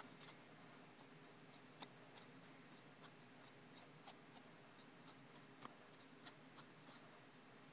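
Faint, irregular small clicks and rubbing from a plastic lip gloss tube and its applicator wand being handled, about two or three ticks a second against near silence.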